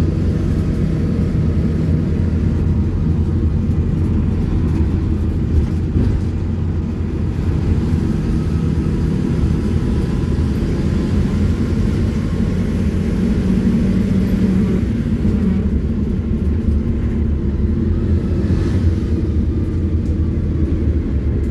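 Cabin noise inside a PAZ 320414 city bus on the move: a steady low rumble of engine and road.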